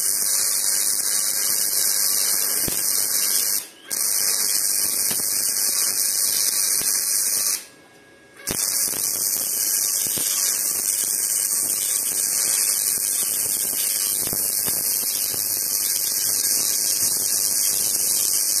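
Parkside PIFDS 120 B2 flux-cored wire welder's arc running a weld bead: a steady, loud hissing crackle that breaks off for a moment about four seconds in and for about a second near eight seconds before restarting, and cuts off at the end. The machine is set between 2 and 2.5 on its dial, which the welder finds a lot of current for the job.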